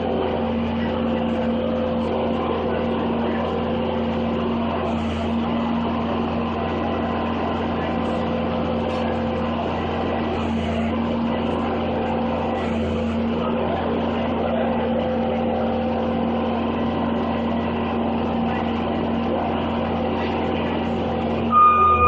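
Skid steer loader's engine running steadily as the machine works the course. Just before the end, a brief, louder high-pitched tone.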